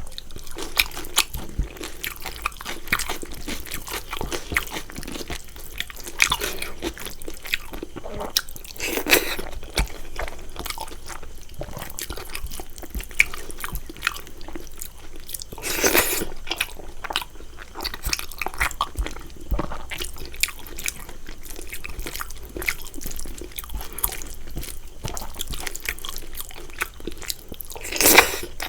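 Close-miked eating of a rice-and-curry meal: steady chewing and wet mouth clicks, with three louder crunchy or rustly bursts spread through.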